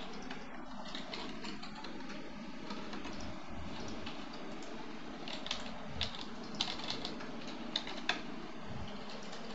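Typing on a computer keyboard: irregular keystroke clicks in short runs, a few louder taps standing out in the second half.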